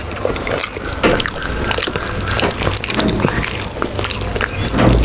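Wet eating sounds: soft khichuri being mixed by hand and chewed, a string of small squelches, smacks and clicks.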